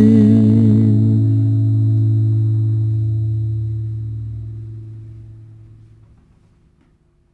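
The last chord of a pop song ringing out and fading away. A held note with vibrato stops about a second in, and the remaining low chord dies out to silence near the end.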